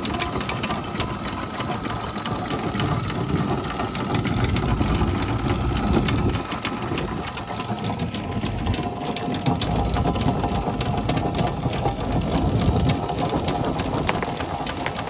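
Electric anchor windlass running, paying out anchor chain: a continuous rattle of chain links over the gypsy with a steady motor whine underneath.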